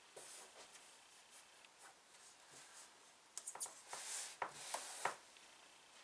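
Faint rustling and rubbing as wool appliqué blocks are handled and pressed onto a design wall. From about three seconds in, the rubbing gets denser, with several sharp clicks and taps.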